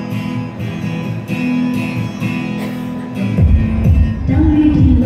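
Live band playing a pop song's instrumental intro over a stadium sound system, led by strummed guitar with sustained notes; about three and a half seconds in, bass and drums come in on a steady beat and it gets louder.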